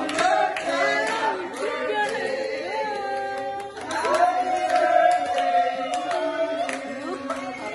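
A group of people singing a celebration song together, with hands clapping along.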